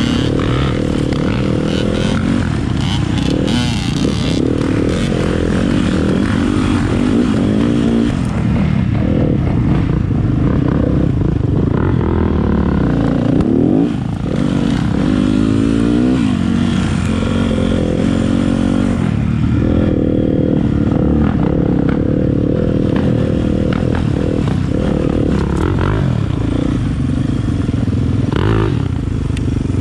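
Dirt bike engine running under way, its pitch rising and falling with the throttle, with several quick climbs in revs around the middle.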